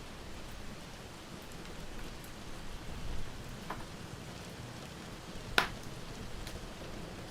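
Steady rain hiss mixed with a wood fire crackling in a fireplace, with a sharp pop about five and a half seconds in.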